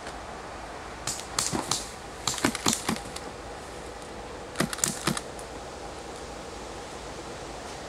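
Suppressed airsoft gun firing quick strings of sharp, snapping shots: three groups of four or five shots about a fifth of a second apart, about a second in, around two and a half seconds in, and near five seconds.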